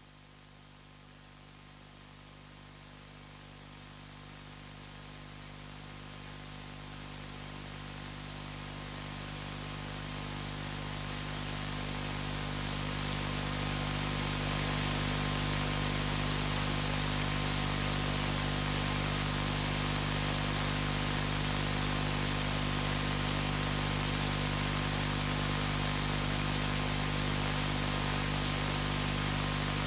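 Steady static hiss with a low electrical hum under it, growing steadily louder over about the first fifteen seconds and then holding level.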